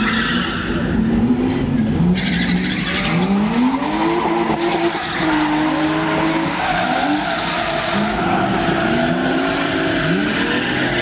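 Drift cars' engines revving up and down repeatedly over a steady hiss of sliding tyres as the cars are held sideways through the corners.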